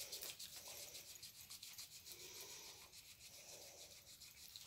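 Faint, quick rubbing strokes on a small pan of violet watercolour paint as it is wetted and worked, fading toward the end.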